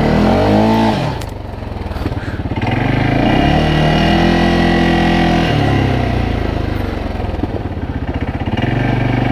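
CFMoto CForce 600 ATV engine revved hard for a burnout: a short rise and fall in the first second, then a longer climb held high for a couple of seconds before dropping back to a lower steady run.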